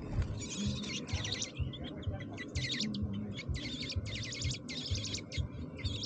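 American robin nestlings begging for food as a parent arrives at the nest: repeated bursts of rapid, high chirps, about two bursts a second, over a low rumble.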